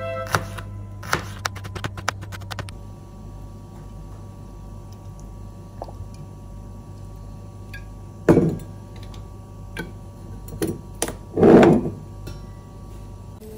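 Background music ends within the first second. Then a steady low hum with a few light clicks, broken by two loud dull thumps, one about eight seconds in and a longer one near the end.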